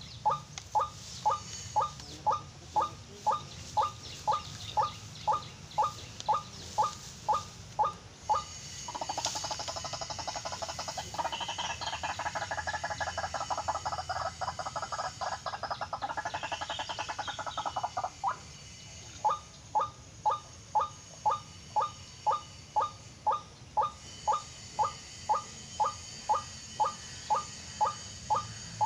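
White-breasted waterhen calling: a single note repeated about twice a second, breaking in the middle into a long, fast chattering run of about ten seconds, after which the evenly repeated notes resume.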